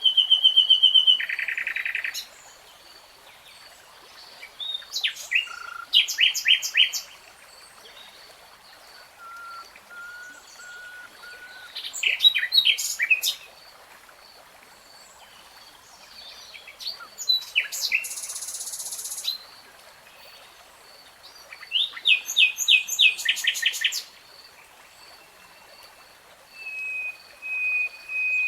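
Songbird singing in short, varied phrases of rapid repeated notes, trills and whistles, each a second or two long, with pauses of a few seconds between them. A faint, evenly pulsing high tone runs steadily underneath.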